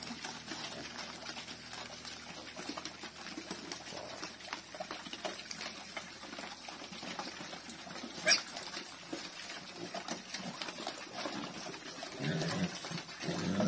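Group of pigs eating wet feed from a tyre trough: a busy run of slurping, smacking and splashing. One pig gives a short, sharp squeal about eight seconds in.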